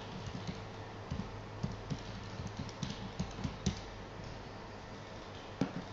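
Irregular clicking and tapping on a laptop keyboard, a couple of dozen light strokes with a sharper click near the end, over a steady low electrical hum.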